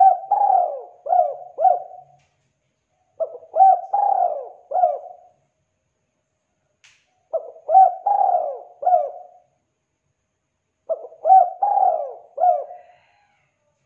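Spotted dove cooing: four song phrases a few seconds apart, each a quick run of about four short coos.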